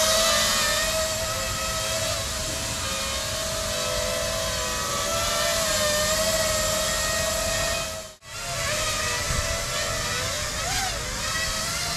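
Five-inch FPV quadcopter's brushless motors and propellers whining steadily in a low hover, the pitch wavering slightly. The sound drops out abruptly for a moment about eight seconds in and then resumes, with a brief rise and fall in pitch near the end.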